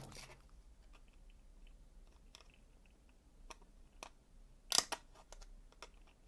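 Captains of Crush No. 2.5 torsion hand gripper being squeezed: faint scattered clicks and creaks from its spring and handles, with one louder, short crunchy creak a little before the end.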